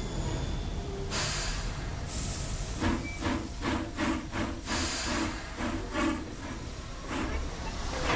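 Sound-designed ambience of a steam-locomotive overhaul shop: a low machinery rumble throughout, a burst of steam hissing about a second in, then a run of rhythmic steam chuffs about two and a half a second for some four seconds, and another hiss burst at the end.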